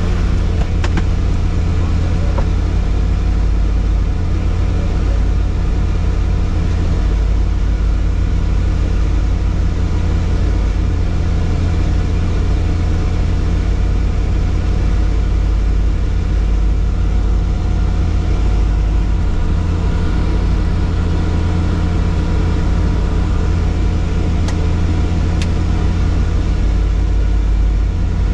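Helicopter running steadily: a constant heavy low drone with several steady whining tones above it, holding one pitch and level throughout.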